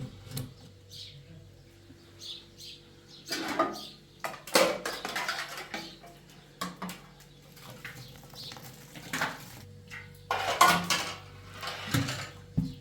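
Intermittent clattering and knocking of hard objects being handled, in several short bursts, like dishes and utensils being moved about.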